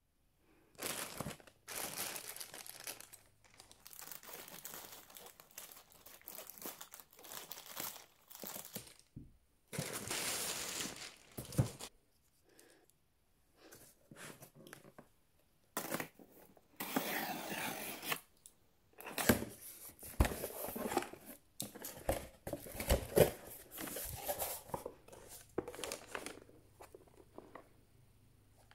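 A parcel being unpacked by hand: a plastic courier mailer being cut and torn open, crinkling and tearing, then a cardboard box being handled and opened. The sounds come in irregular bursts of rustling with short pauses between.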